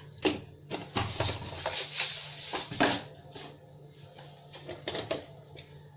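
Kitchen utensils and containers being handled at the stove: a few sharp clicks and knocks, with a rustle between about one and three seconds in.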